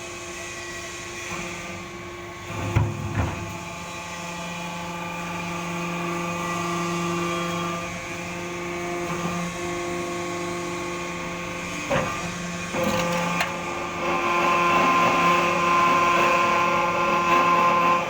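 A 135-tonne hydraulic scrap metal baler running: a steady hum and whine from its 18.5 kW motor and hydraulic pump, with a few sharp knocks of scrap metal being compressed. It grows louder over the last few seconds as the press works.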